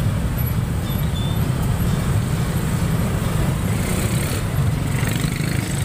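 Steady low rumble of engines in slow, stop-and-go traffic, heard from a Yamaha NMAX scooter crawling through a jam: its own single-cylinder engine and the motorbikes and cars close around it.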